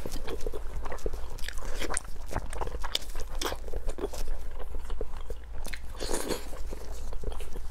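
Close-miked eating sounds of a person biting and chewing glazed pork, with sharp wet mouth clicks and smacks coming irregularly several times a second. A steady low hum runs underneath.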